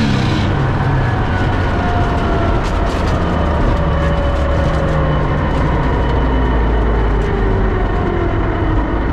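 Cabin noise of a 310-cubic-inch, naturally aspirated, stick-shift Fox-body Mustang V8 coming off the throttle after a run. The high hiss drops about half a second in, and the engine then coasts down with its pitch falling slowly under heavy road and drivetrain noise, with a few rattling clicks around three seconds in.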